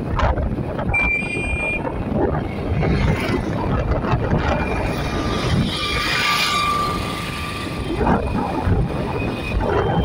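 Wind buffeting the microphone and road noise from riding in an open vehicle along a road, a steady rumble. A brief high beep sounds about a second in.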